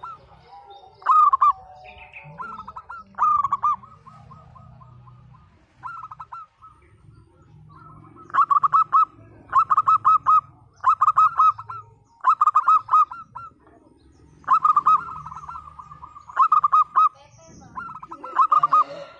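Local zebra dove (perkutut) cooing in its rough 'pecah' (cracked) voice: short phrases of quick, rolling staccato coo notes. A few scattered phrases come first, then from about eight seconds in a run of phrases about one a second, with one longer phrase partway through.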